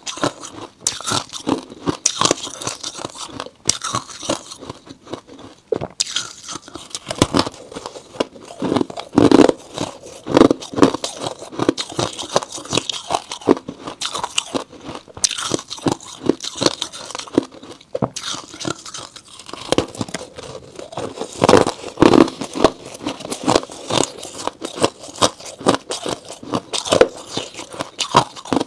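Freezer frost being bitten and chewed right at a clip-on microphone: dense, irregular crunching, with a few short pauses between bites.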